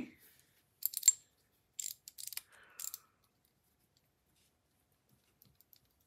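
Light metallic clicks and clacks from handling a dolphin-shaped fidget toy that feels like titanium: a couple of clicks about a second in, a quick cluster between two and three seconds in, and a few faint ticks near the end.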